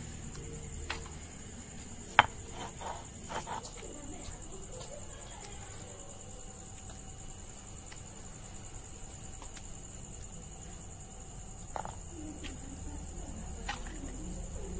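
Crickets chirping steadily and high-pitched, with a few sharp knocks of a stone roller on a flat grinding stone (sil-batta), the loudest about two seconds in and others near the end.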